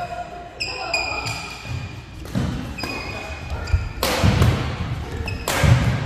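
Badminton doubles rally: court shoes squeak in short high chirps on the court mat and footfalls thud. Two loud sharp smacks of racket on shuttlecock ring out in the hall, about four and five and a half seconds in.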